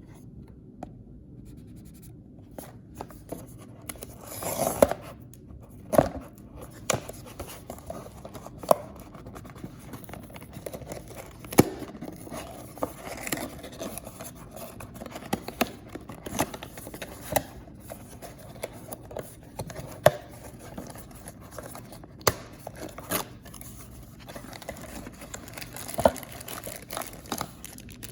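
Hands handling and opening paper blind bags and toy packaging: rustling, scraping and tearing, broken by many irregular small clicks and taps.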